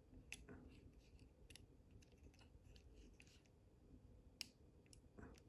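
Near silence with faint, irregular small clicks from fingers turning the needle of a Yanmar tachometer on its spindle; the sharpest click comes about four and a half seconds in.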